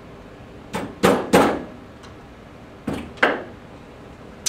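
Five sharp knocks, three in quick succession about a second in and two more near the three-second mark. A wooden paint-stirrer strip is being struck to drive a chair sling's retainer cord into the frame channel.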